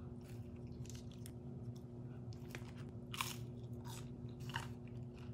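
A person biting and chewing McDonald's fast food close to the microphone: quiet, irregular crunches and mouth sounds, a few sharper ones scattered through.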